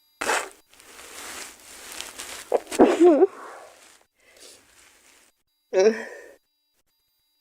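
A girl sneezing: a sharp breath, a breathy build-up, then a loud voiced sneeze about three seconds in, followed by a shorter voiced sound near the end.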